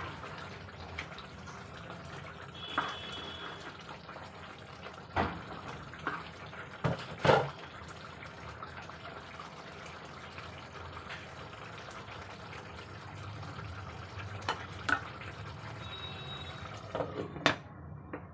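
Curry bubbling in a pan on the stove, a steady simmer, with a ladle knocking against the pan several times, loudest about seven seconds in, and a couple of short metallic rings.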